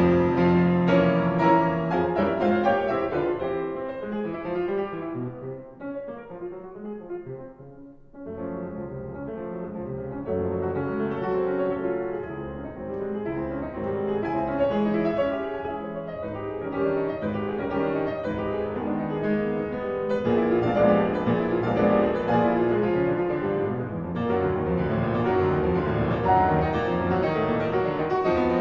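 Piano music, note after note, that thins out and nearly stops about eight seconds in, then picks up again.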